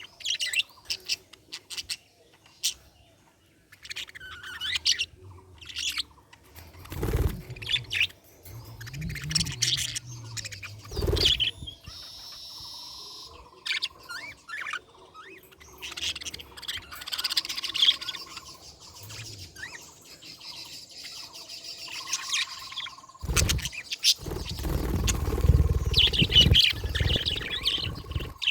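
Budgerigar chirping in quick high runs, with a few short steady whistled notes. Two sharp knocks come in the first half, and a low rumbling noise joins the chirps near the end.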